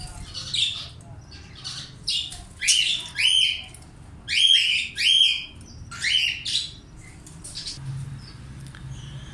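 Pet parrots in an aviary (a cockatiel and budgerigars) calling: about eight loud, shrill rising squawks, often in pairs, over the first six seconds, then only soft chirps.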